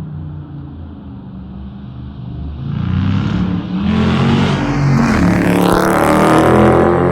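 Dodge Charger Daytona's Hemi V8 through a Flowmaster Outlaw exhaust, running low and steady at first, then getting louder from about three seconds in with its pitch climbing as it revs up, loudest near the end.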